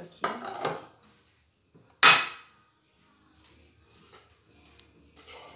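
Metal cookware being handled on a stone counter: a few light knocks in the first second, then one sharp metallic clank with a short ringing about two seconds in, the loudest sound.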